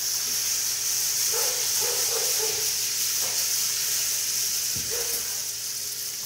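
Tall wooden rain stick tipped up, its pellets trickling down inside in a steady rushing hiss that thins out near the end.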